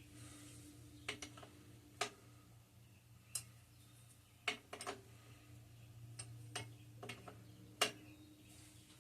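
Sharp metallic clicks and taps, about ten of them at irregular intervals, from a 1/2-inch wrench being fitted to and turned on nuts on a Kohler KT17 engine's intake. The loudest click comes near the end.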